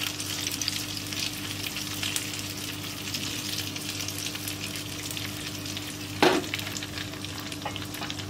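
Banana pieces, cashews and raisins sizzling in hot ghee in a small frying pan as the pan is swirled over a gas burner. There is a steady crackle throughout, and a single knock about six seconds in.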